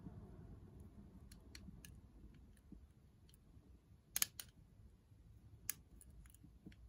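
Faint, irregular metallic clicks and ticks of a thin pick wire probing the levers inside a Chubb Corvette lever padlock, held under an Andy Mac tensioner, while feeling for a binding lever. A sharper double click comes a little after four seconds in, and another near six.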